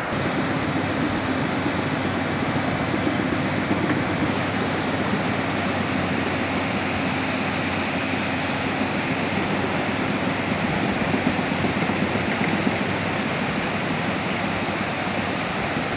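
Floodwater rushing steadily across a shallow stream crossing, with a faint low hum underneath that fades out after about ten seconds.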